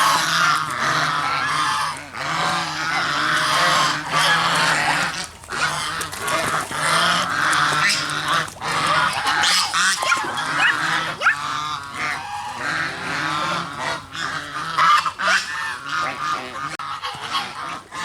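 Geese honking: many overlapping calls with hardly a pause, some louder honks standing out over the rest.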